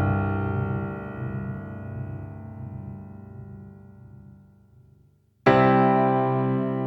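Background piano music: a held chord slowly dies away to almost nothing, then a new chord is struck near the end.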